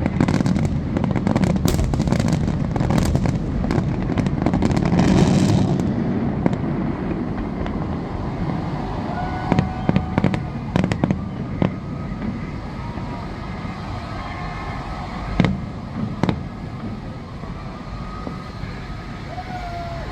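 Aerial fireworks finale: a dense barrage of booms and crackling over a heavy rumble for about six seconds, then thinning out to a few scattered single bangs.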